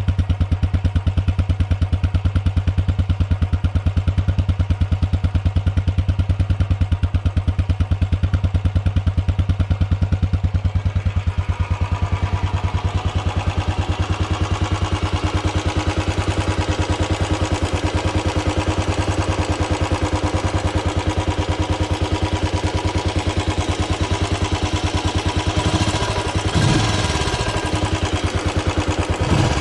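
Royal Enfield Classic single-cylinder motorcycle idling with a steady, even exhaust thump. About twelve seconds in the sound turns brighter and clattery, and near the end the throttle is blipped twice, the pitch sweeping up and falling back.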